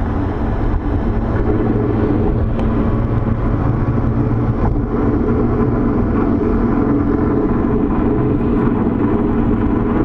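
Engine of a 2020 Lotus Evora GT, a supercharged 3.5-litre V6, running steadily at cruise with road rumble, heard from inside the car.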